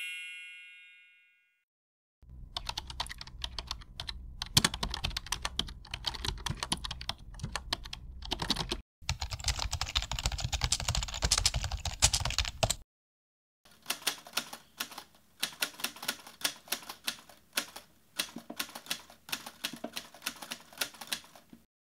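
Computer keyboard typing: after a chime dies away and a moment of quiet, fast runs of key clicks with a short break between them, then after a pause slower, more spaced-out keystrokes.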